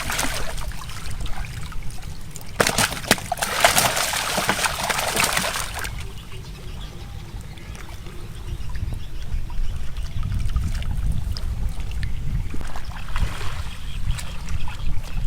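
Water splashing and trickling, loudest for a few seconds near the start, then quieter with a low rumble underneath.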